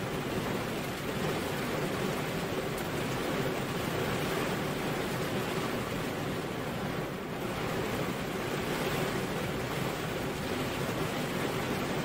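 Steady rain falling, a dense even hiss that dips slightly about seven seconds in.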